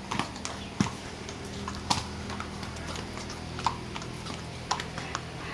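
Hooves of several polo horses clip-clopping unevenly on concrete as they are led at a walk, over a steady low hum.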